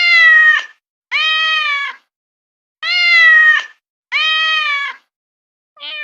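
Cat meowing: four long meows in two pairs, then a short one near the end, with clean silence between them, as from a sound-effect recording.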